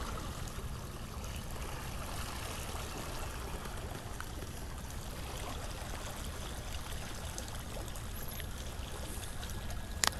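River water running and trickling steadily, with a single sharp click near the end.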